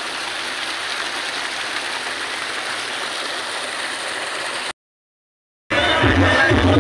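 Steady rushing hiss of water flowing in an irrigation channel beside a rice paddy. It cuts off abruptly after about four and a half seconds, and after a second of dead silence loud music with a heavy bass begins.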